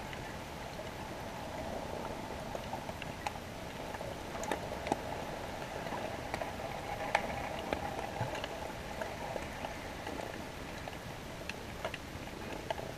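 Underwater noise picked up by a submerged GoPro: a steady crackling fizz with scattered sharp clicks and pops.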